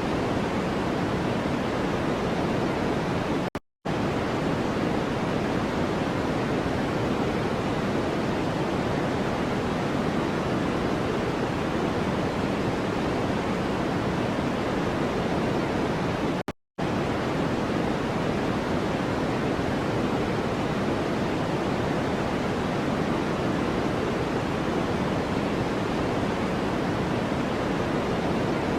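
Steady, even noise of a white-noise sleep track, with no rhythm or tone and most of its weight in the low-middle range, so it sounds deeper and softer than pure hiss. It cuts out to silence for an instant twice, about four seconds in and again a little past halfway.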